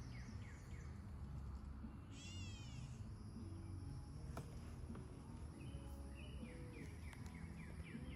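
Birds calling outdoors: quick runs of short falling chirps, with a brief louder phrase of high descending notes about two seconds in, over a steady low rush of water or wind.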